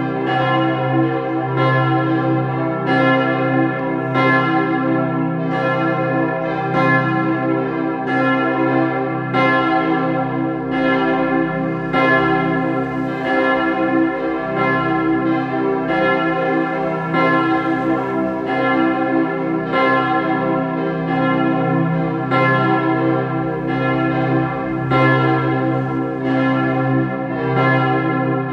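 Tower bells of the Martin-Luther-Kirche ringing continuously. Strikes come about once a second and overlap in a dense, sustained ring.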